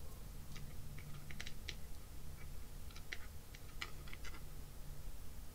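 Light, irregular clicks and taps of a small plastic cooling fan being handled and set against an electronics box lid, over a faint low hum.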